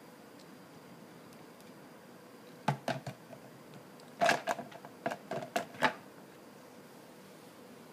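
Plastic clicks and knocks from a KitchenAid food processor being handled by hand, with the motor off. A few come about three seconds in, and a quicker run of them follows between about four and six seconds.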